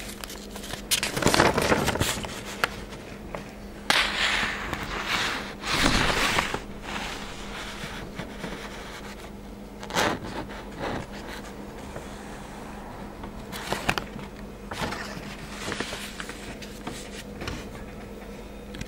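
Rustling and scraping of a paper sheet of foam stickers being handled by fingers, in irregular bursts with scattered small clicks and taps, over a faint steady hum.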